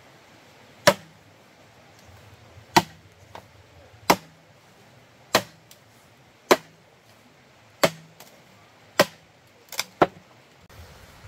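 Sharp chopping strikes, about nine of them at a fairly even pace of roughly one every second and a quarter, with a short ring after each.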